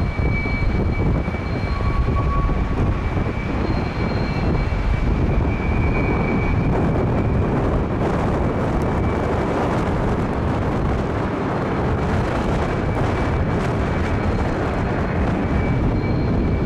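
KLM Embraer E190's twin turbofan engines at go-around power, passing overhead and climbing away: a steady high engine whine over a dense rumble, the whine fading about halfway through. Storm wind buffets the microphone throughout.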